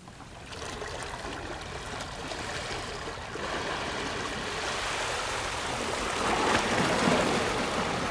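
Sea water washing and swirling against shoreline rocks, a steady rush that grows gradually louder.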